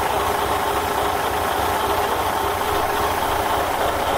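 1979 Scania 141's 14-litre V8 diesel engine idling steadily, with an even low throb.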